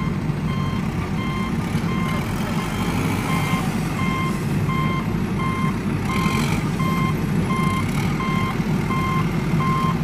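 Vehicle reversing alarm beeping steadily, about two beeps a second, over a steady low rumble.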